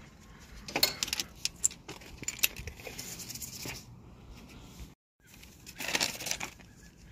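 Light clicks and clinks of an ABS wheel-speed sensor's wiring harness and plastic clips being handled and pulled free, then a short rustle about six seconds in.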